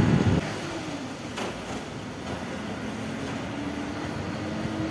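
A vehicle drives through a road tunnel: steady engine and road noise with a faint hum. A louder low rumble cuts off suddenly about half a second in.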